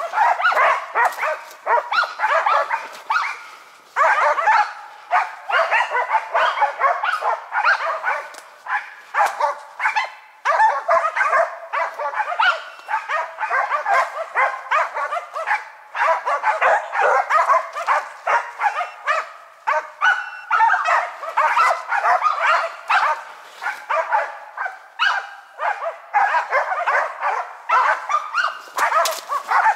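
Laika hunting dogs barking rapidly and without letup up at a tree. This is the steady treeing bark that signals the dogs are holding a marten hidden in a tree hollow.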